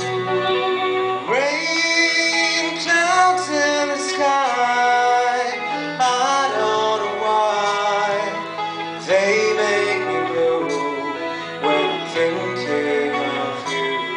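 Live band playing a song, with violin and electric guitar under a singer's voice.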